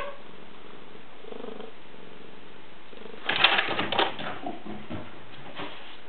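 Siamese cat giving a soft, short meow about a second in. A little past halfway comes about a second of quick clattering taps and scuffles, followed by a couple of lighter taps.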